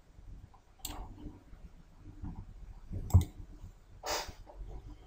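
A few computer mouse clicks, the loudest about three seconds in, followed about a second later by a short, breathy hiss.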